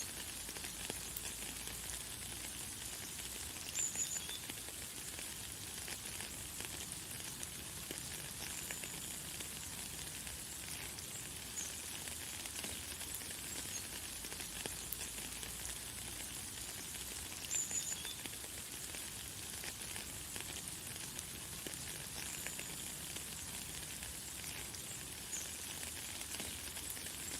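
Light, fine rain falling as a steady hiss, with a bird chirping briefly and high now and then, loudest about four seconds in and again a little past halfway.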